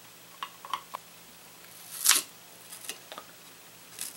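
Small clicks and taps of a screwdriver and fingers working the screws and circuit board on the underside of a hard drive, with one louder, brief clatter about two seconds in.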